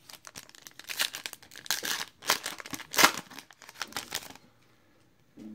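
Crinkling and tearing of a trading-card pack's wrapper as it is ripped open, in a run of irregular crackles with the sharpest tear about three seconds in; it stops a little after four seconds.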